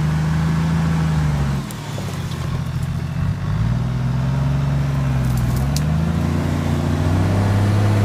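Off-road SUV engine running under load as the vehicle crawls across a steep slope, its revs changing: steady at first, dropping sharply about a second and a half in, rising and falling again, then climbing and holding steady near the end.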